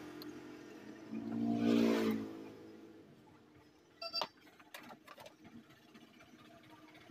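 A passing motor vehicle's engine in the background swells and fades, loudest about two seconds in. Then come a few sharp clicks of hand tools being put down on the workbench about four to five seconds in.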